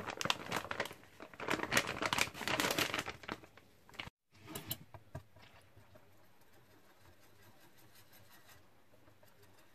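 Plastic bag of rice flour crinkling and rustling as the flour is shaken out into a stainless steel pot, for about three seconds. After a sudden cut near four seconds come a few light knocks, then only faint sound.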